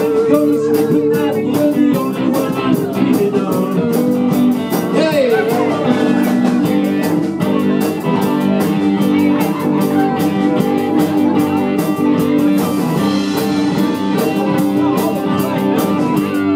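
Live rock and roll band playing, with electric guitars over a steady drum beat.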